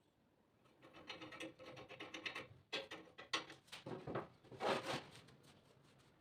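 Faint scraping and rubbing, followed by a few light knocks.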